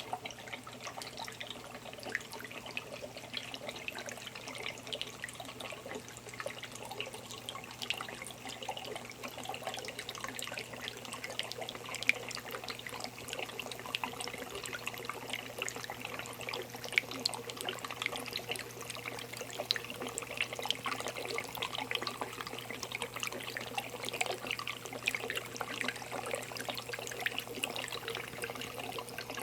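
Water trickling and splashing continuously down a small tabletop rock fountain into its marble basin, with many small drips. A steady low hum runs underneath.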